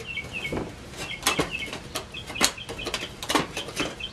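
Thin sheet-metal trailer siding being bent back and forth by hand, giving irregular crackles and pops as it fatigues and tears along a knife-scored line.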